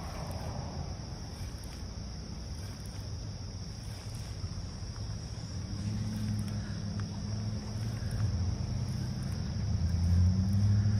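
Steady high-pitched insect chorus. From about halfway through, the low hum of an engine grows louder, loudest near the end, its pitch rising slightly and then falling like a passing vehicle.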